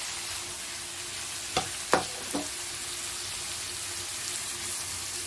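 Chopped courgettes sizzling in a wok on a hot tomato, onion and ginger masala, a steady frying hiss. About a second and a half in come three sharp knocks against the pan, the middle one the loudest.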